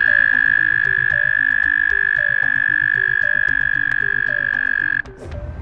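A frog giving one long, steady, high-pitched call, held for about five seconds and then cutting off suddenly.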